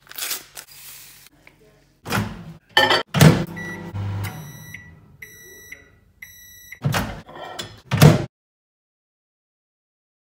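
Kitchen handling sounds: several loud clunks and knocks, with a run of microwave oven beeps in the middle, the last two held longer. The sound cuts off suddenly about eight seconds in.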